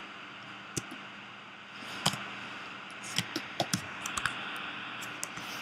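Scattered clicks of a computer keyboard and mouse, a few at first and more frequent from about two seconds in, over a steady low hiss.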